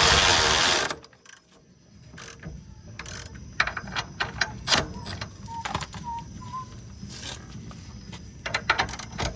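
Hand tools working on a car's suspension: a loud burst of noise for about the first second, then scattered ratchet clicks and metal clinks while the control arms are bolted up.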